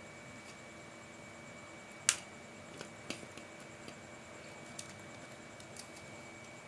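Small clicks and taps of hand work with small parts, with one sharp click about two seconds in and scattered lighter ticks after it. A faint steady high whine runs underneath.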